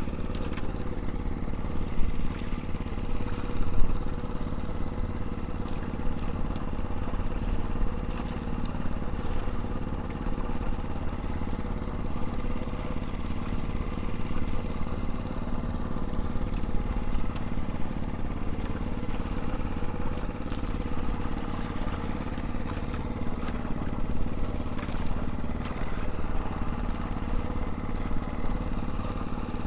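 Small generator engine running steadily at a constant speed, with a couple of short knocks about two and four seconds in.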